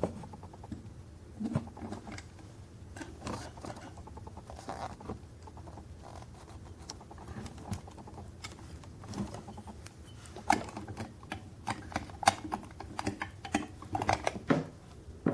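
Scattered light clicks and taps of handling as a small diecast model is turned in the hands, coming thicker in the second half, over a low steady hum.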